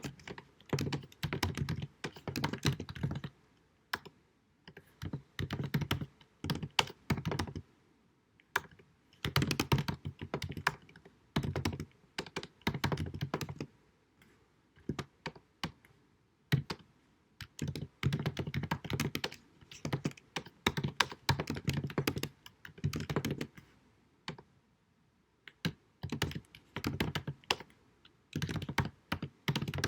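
Computer keyboard typing in quick bursts of keystrokes, a second or two each, broken by short pauses, with an occasional heavier key thunk. Recorded at deliberately low sound quality.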